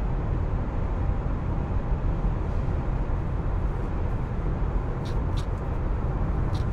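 Steady road and wind noise inside the cabin of a 2024 Tesla Model Y RWD, with roof bars fitted, cruising at about 110 km/h. The noise is heaviest in the low end and does not change.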